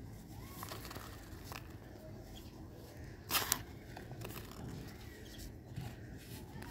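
Dry, soft red dirt crumbling and crunching under a hand as clumps are squeezed and pressed into the pile, with a faint grainy crackle throughout and one louder, brief crunch about halfway through.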